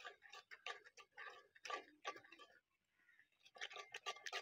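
Metal spoon stirring a thick yogurt-and-spice marinade in a metal bowl: a fast, faint run of scrapes and clicks against the bowl that stops briefly about two and a half seconds in, then picks up again.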